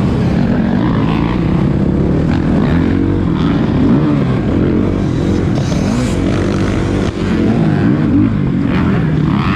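Several motocross bikes racing, their engines revving up and down in pitch and overlapping one another.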